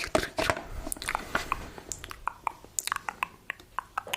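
Close-miked ASMR mouth or chewing sounds: a quick, irregular run of short wet clicks and crisp crackles.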